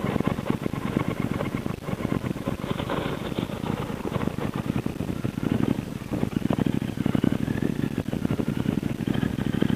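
A Triumph America's parallel-twin engine running at low speed as the motorcycle rolls slowly, a steady, even beat of firing pulses.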